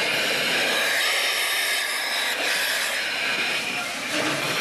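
Steady, loud hiss of a fire hose stream and the steam it raises inside a burning building.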